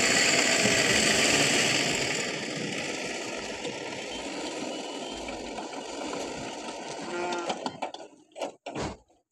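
Steel gate swinging on its hinges, creaking and rattling, over a steady mechanical running noise that fades and cuts out near the end.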